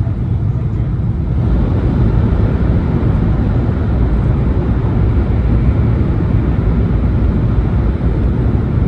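E2 series Shinkansen train running: a steady low rumble with rushing noise over it, growing a little louder about a second and a half in.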